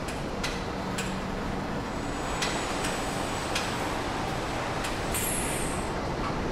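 Factory-floor ambience: a steady machinery noise with scattered sharp metallic clicks, and a short high hiss falling in pitch about five seconds in.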